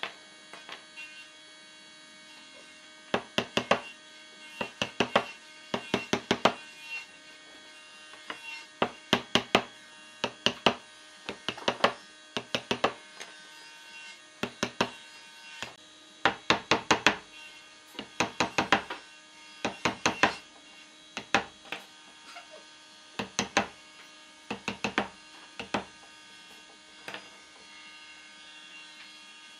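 Wooden mallet striking a wood chisel as it chops out a cross-shaped recess in a wooden panel: sharp knocks in quick runs of several strikes, with short pauses between the runs.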